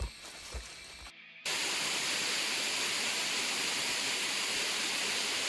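Steady rush of a waterfall, an even roar of falling water that cuts in abruptly about a second and a half in. It is preceded by a couple of footsteps or thumps on a forest trail.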